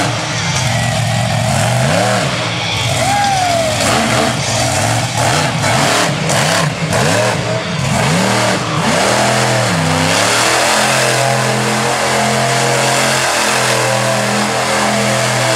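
Monster truck engine revving up and down in repeated quick sweeps, then held at a steady high rev from about ten seconds in as the truck spins in the dirt.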